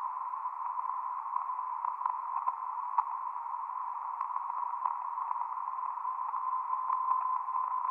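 Band-filtered receiver hiss from a VHF radio on upper sideband, tuned to the BRAMS meteor radar beacon. A faint 1 kHz beat note runs through it, with a few brief pings and clicks: short meteor echoes reflecting the beacon's signal. The 1 kHz tone grows steadier and stronger near the end.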